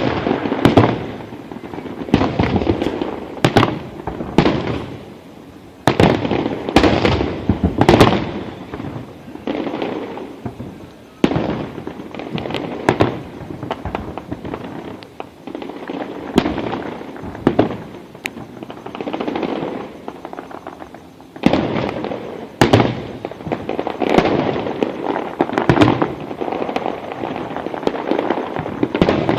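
Aerial fireworks shells bursting in quick, continuous succession: sharp bangs, several a second, overlapping with a constant rumble and crackle.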